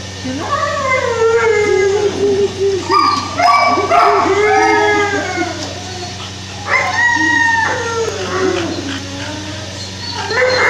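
Dog howling: several long calls that slide down in pitch, coming in bouts with short gaps between them.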